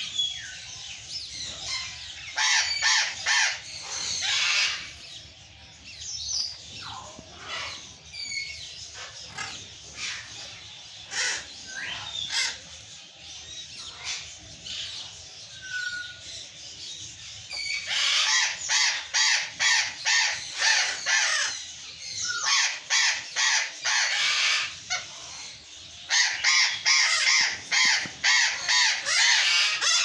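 Burrowing parrots (Patagonian conures) screaming: rapid runs of harsh calls, loudest in two long bouts in the second half, with scattered single calls and a few short whistles between.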